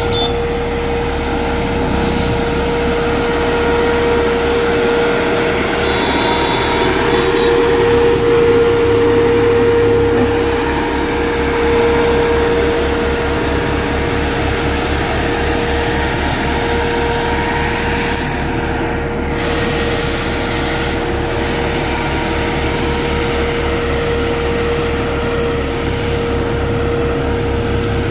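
Dynapac single-drum road roller's diesel engine running steadily as the roller drives over the earth subgrade, with a steady humming tone over the engine noise; slightly louder around the middle.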